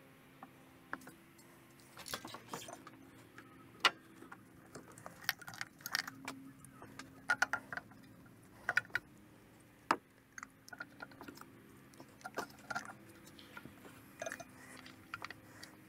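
Irregular light clicks, taps and rattles of small plastic and metal parts being handled as new ignition coil packs are fitted into the engine's spark-plug bores.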